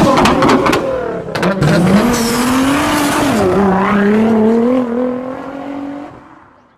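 Several sharp clicks in the first second and a half, then an engine revving up, dropping back and holding steady, fading out near the end.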